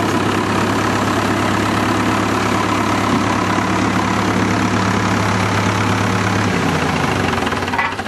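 Fordson tractor engine idling steadily, then its low note stops about six and a half seconds in and the sound dies away as the engine is shut off near the end.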